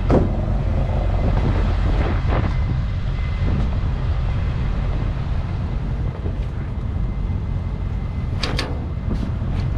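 Vehicle on the move: a steady low engine and road rumble, with a few short clatters about eight and a half seconds in.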